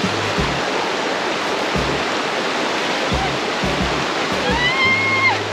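Mountain stream water rushing over rocks, a steady loud hiss. Near the end a short, high-pitched held cry cuts through, dropping in pitch as it stops.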